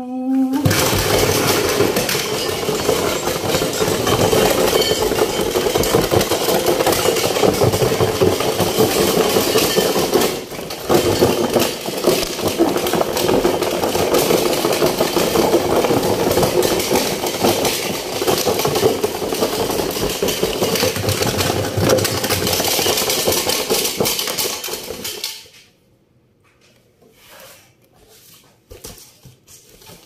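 Homemade cardboard toy washing machine running with heavy objects loaded inside: a loud, continuous rattling and clattering as the box shakes. It cuts off suddenly about 25 seconds in, followed by a few faint handling knocks.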